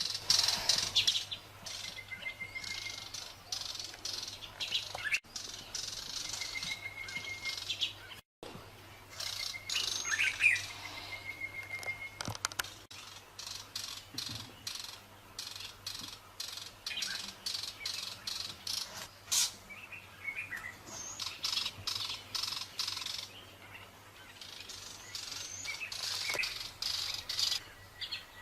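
Birds chirping in quick runs of high notes, with a few short, level whistled notes in between.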